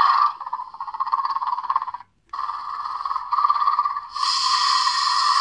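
Mattel Grab N' Growl Indoraptor toy playing its recorded roar and growl sound effects through a small built-in speaker, tinny and without low end. One call is cut off about two seconds in, and a second call follows at once and turns harsher and brighter about four seconds in.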